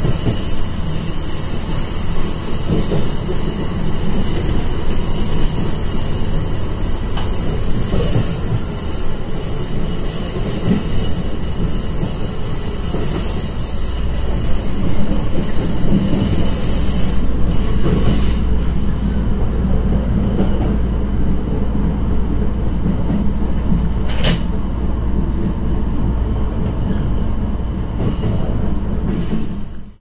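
Inside a KiHa E120 diesel railcar under way: a steady rumble of wheels on rail with a few sharp clicks. About two-thirds of the way through the higher sounds thin and the engine's low drone comes up stronger, and the sound fades out at the very end.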